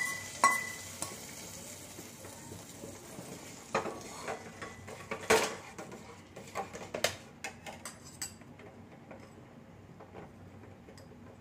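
Steel bowl clinking against the rim of a stainless steel pot as ghee-fried cashews and raisins are tipped in, with a faint sizzle, then a steel ladle stirring and knocking against the pot in the thick payasam, the knocks thinning out near the end.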